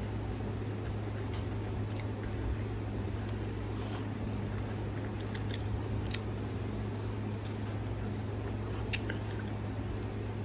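Close-up chewing and biting of sauced chicken wings, with small wet clicks and smacks of eating, over a steady low hum.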